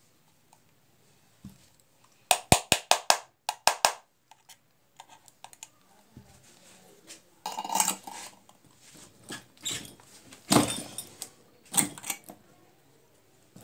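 Hand-assembly of an LED bulb: a quick run of about eight sharp clicks as the metal screw cap is worked onto the plastic bulb body, then scattered clatter of metal and plastic parts with a louder knock near the end as the bulb is set onto the press die.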